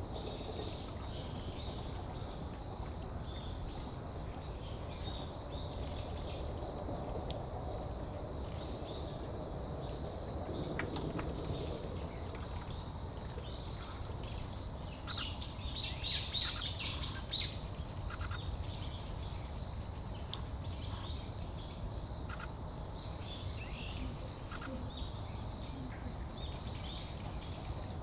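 Steady, high, pulsing trill of crickets or other night insects. About halfway through, a brief flurry of small bird calls rises over it.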